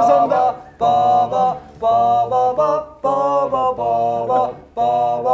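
Male voices singing a short tune without accompaniment, in held phrases of about a second each with brief breaks between them.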